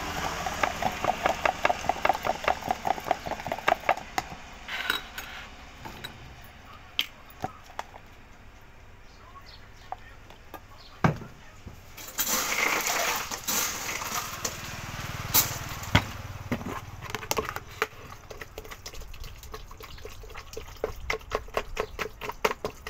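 Metal spoon stirring a thick drink in a plastic cup, a run of quick clinks against the side. Later comes a stretch of rattling and clattering, like ice being scooped, then more rapid spoon clinks near the end.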